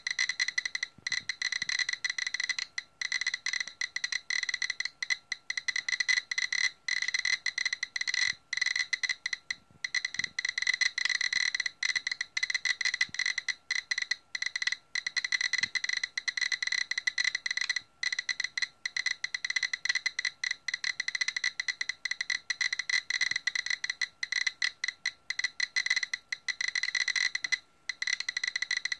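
GQ GMC-300E Plus Geiger counter clicking rapidly and irregularly, each count a short high beep. This is the sign of strong radioactivity from the uranium-oxide glaze of orange Fiestaware, with several hundred counts per minute against a background average of about 35.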